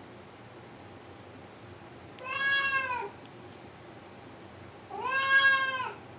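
Blue point Siamese cat crying: two long, drawn-out meows about a second each, roughly two and a half seconds apart, each rising slightly and then dropping in pitch at the end. They are its demand cries to have a door opened.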